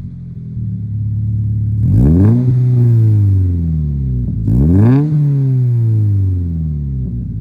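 2020 Subaru BRZ's flat-four engine, fitted with an Invidia N1 cat-back exhaust, blipped twice: two sharp revs about two and a half seconds apart, each falling back toward idle.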